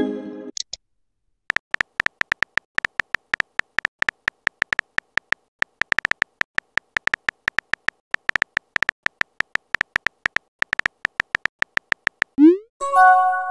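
Texting-app keyboard sound effect: short electronic ticks, about five a second, one per letter as a message is typed. It opens on the fading tail of a chime and ends with a quick rising swoosh and a short chime as a message is sent.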